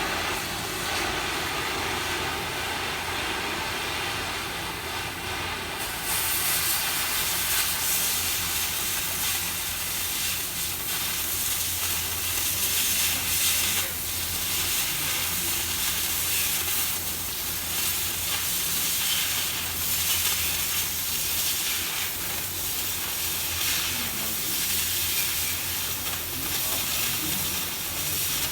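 Oxy-fuel cutting torch hissing steadily as it cuts steel plate by hand. About six seconds in the hiss grows louder and sharper and holds, the cutting-oxygen jet burning through the plate.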